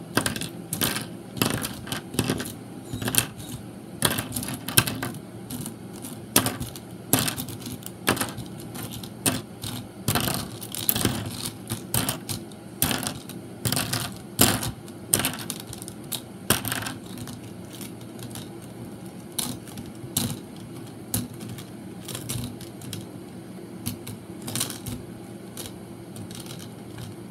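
Small plastic LEGO minifigures clicking and clattering as they are picked up and set down one at a time while being counted: many irregular sharp clicks, frequent through most of the stretch and sparser near the end.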